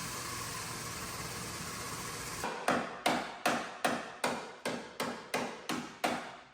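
A steady hiss, then about ten even hammer blows, roughly two and a half a second, starting a little over two seconds in.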